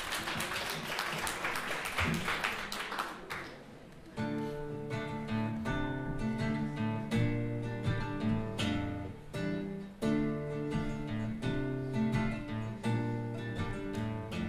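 Solo acoustic guitar playing a song's instrumental introduction. It opens with a few seconds of noisier strumming, dips briefly about four seconds in, then settles into clear picked notes in a steady rhythm.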